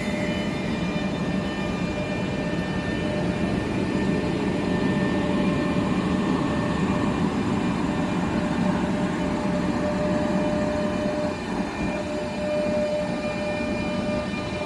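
Two coupled Renfe Class 447 electric multiple units pulling out of the station: a steady rumble of wheels and running gear with a steady electric motor whine.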